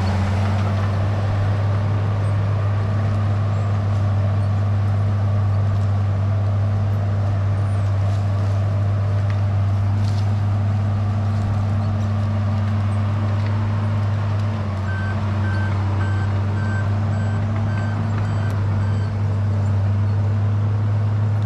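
Case 850K crawler bulldozer's diesel engine running steadily at work, with its backup alarm beeping for a few seconds past the middle.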